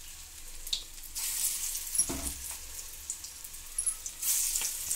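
Bottle-gourd-leaf pakoras sizzling in hot refined oil in a kadhai, just after the last of the batter has gone in. The sizzle swells twice, and there is a light knock about two seconds in.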